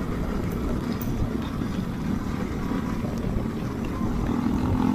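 Motorcycle riding on a wet road, heard from its onboard camera: steady wind rush on the microphone over the engine running, with a steadier engine tone coming in near the end.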